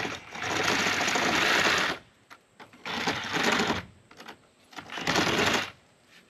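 Power drill running a Spyder carbide-tipped bit as it cuts into the wall, in three bursts: a long one of about two seconds, then two short ones of about a second each.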